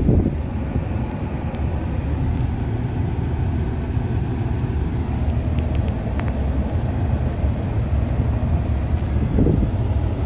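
2012 Ford F-150 engine idling steadily, heard from inside the cab, with a few light clicks about six seconds in.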